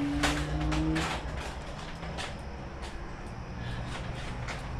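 Wood fire burning in a firebox under a large wok: scattered sharp crackles and pops over a low rumble, with a steady low hum for about the first second.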